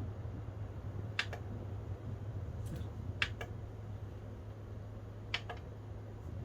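Dreammaker Feel Fan Plus electric fan with a BLDC motor running steadily: an even airy rush with a low hum. A few sharp clicks cut in at about one, three and five seconds in.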